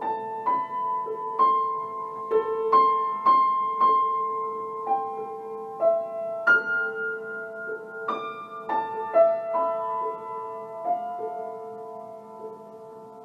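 Solo piano playing a slow, sparse line of single struck notes, roughly one a second, over a steady held lower note.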